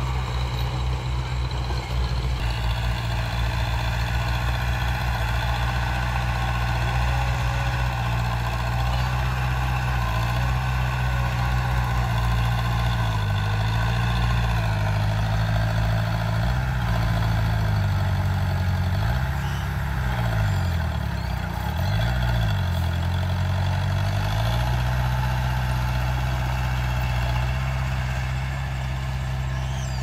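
Diesel engine of a small crawler bulldozer running steadily while pushing soil. Its pitch dips and recovers a few times around the middle as the engine takes load.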